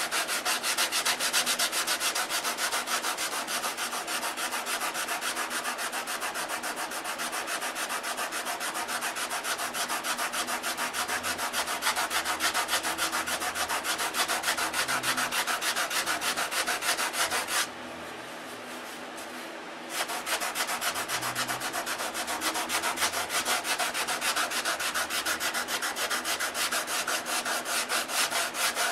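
Sandpaper worked back and forth by hand over a balsa block wingtip, shaping it to blend into the wing: a steady run of quick rasping strokes, with one pause of about two seconds about two-thirds of the way through.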